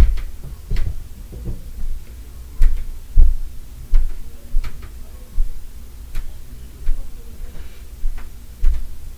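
Heavy stomping footsteps from a neighbouring unit, heard as dull thuds through the building at about one and a half a second. A few of them carry a sharper knock.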